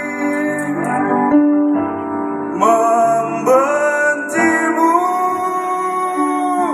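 Live band music: keyboard and guitars accompany singers who hold long sung notes, with new notes starting several times through the passage.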